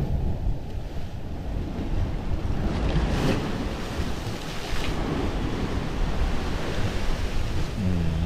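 Sea surf washing and surging, with wind buffeting the microphone as a low rumble; the wash swells a couple of times.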